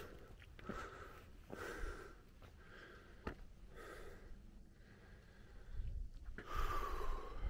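A person breathing hard, each breath a soft puff about once a second, with a few faint footstep clicks; a louder rush of noise comes near the end.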